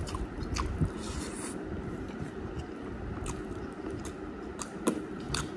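Eating by hand: chewing and wet mouth clicks, with fingers squishing rice into beef curry. A few sharp clicks are scattered through, the loudest just before the end.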